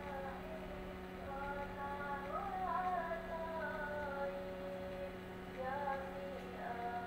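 A woman singing a slow melody with long held notes that slide up and down, over a steady low electrical hum.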